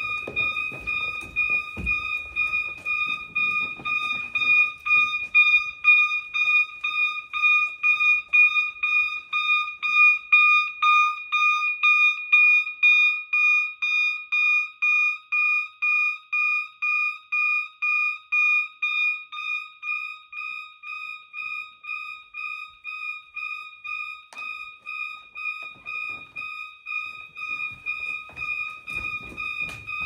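System Sensor MASS ADA fire alarm horn sounding a 1200 Hz tone, pulsed on and off about twice a second in march-time coding from the panel during a full alarm.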